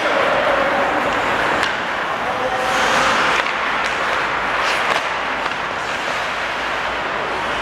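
Live ice hockey play on the rink: a steady rush of skates on the ice and arena noise, with distant shouts and a couple of sharp knocks, one about two seconds in and another near five seconds.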